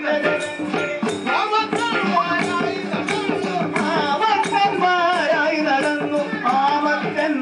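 Ottanthullal music: a man singing verse in a wavering, ornamented line over mridangam drum strokes and the steady clash of small hand cymbals.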